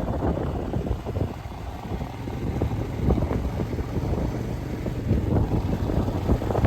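Royal Enfield Himalayan motorcycle engine running on the move, with wind buffeting the microphone.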